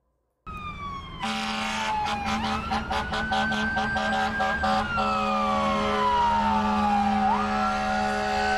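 Fire-rescue ambulance siren wailing: the pitch sweeps slowly up and down and jumps back up about seven seconds in. A steady low horn tone sounds with it, pulsing rapidly for the first few seconds.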